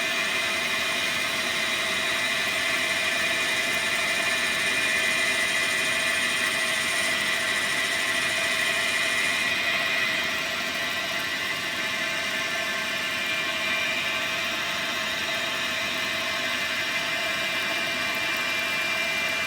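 Dyna Mechtronics DM3000 benchtop CNC lathe running through a turning program, with a steady mechanical whine from its spindle and drives. A thin high whine drops out about halfway through.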